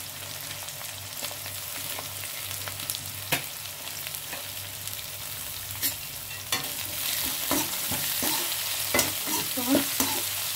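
Chopped onions frying and sizzling in hot oil in a metal kadhai, with a few sharp clicks and scrapes of a spatula against the pan. The sizzle gets louder about two-thirds of the way through as the onions are stirred into the oil.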